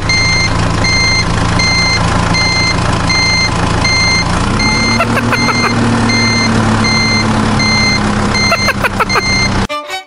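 Vehicle reversing alarm beeping steadily, about one and a half beeps a second, over a steady engine drone that rises slightly in pitch about four seconds in. A few clicks and knocks come near the end.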